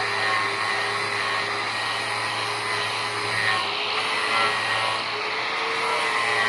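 Electric power tool motor running steadily with a continuous whir, its pitch drifting slightly as it works.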